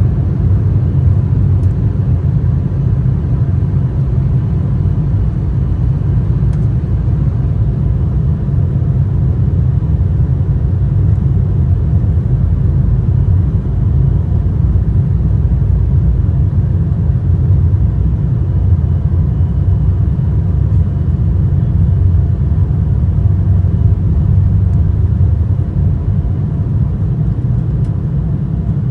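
Embraer 175 jet heard from inside the passenger cabin during takeoff: a loud, steady low rumble of the engines and airframe, with a faint steady whine above it.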